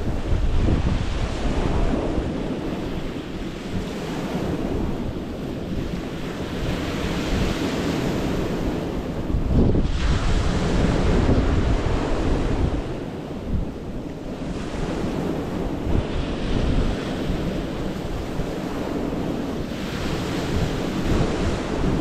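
Small waves breaking and washing in over a stony beach, the hiss of each wash swelling and fading every few seconds. Steady wind buffets the microphone with a low rumble underneath.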